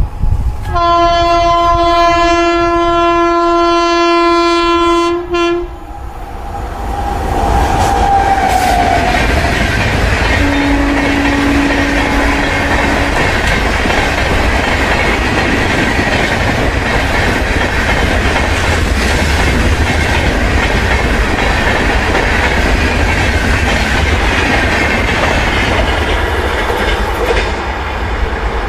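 Electric locomotive horn sounding one long blast of about five seconds, followed a few seconds later by a shorter, lower horn note. Then the passenger coaches pass with a steady rushing rumble and the clickety-clack of wheels over rail joints.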